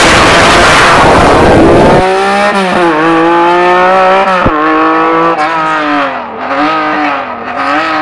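Lancia Stratos's Ferrari Dino V6 on an open straight exhaust, launching from standstill with a very loud, distorted blast. After about two seconds it pulls away, the revs climbing and dropping back through several gear changes as the car recedes and grows fainter.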